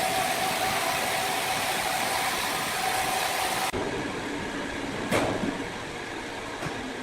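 Sawmill machinery running: a steady mechanical rush with a thin steady whine. About halfway through it changes abruptly to a quieter run, with one sharp knock about five seconds in.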